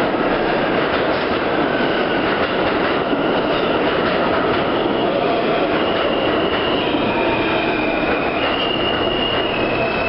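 New York City subway train running past along the platform: a steady, loud rumble of steel wheels on the rails, with thin high-pitched tones that come in about halfway through and shift in pitch a few times.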